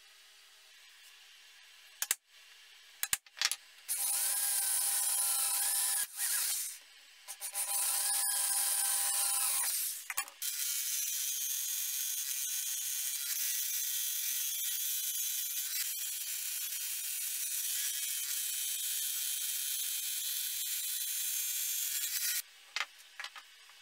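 Small electric scroll saw clicked on and running in two short bursts, then cutting through a thin panel for about twelve seconds with a rattling machine sound before it is switched off with a couple of clicks.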